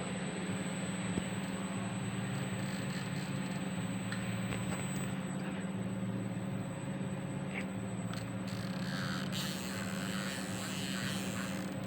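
Steady hum of a running machine, a low even drone with a faint noisy wash over it.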